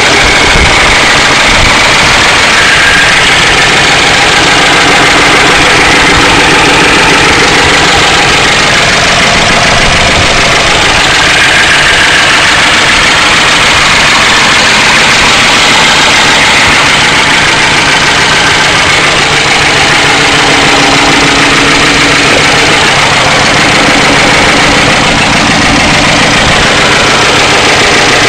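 1992 Ford Crown Victoria's 4.6-litre V8 idling steadily and loudly, with a fast ticking clatter from the engine. The owner suspects low oil pressure is causing the noise.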